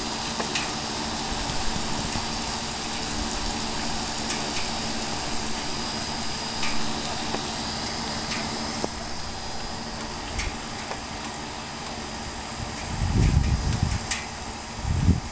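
Steady hiss of rain after a heavy downpour, over a constant low hum, with scattered sharp drips. A low rumble, typical of distant thunder, swells up about thirteen seconds in and again near the end.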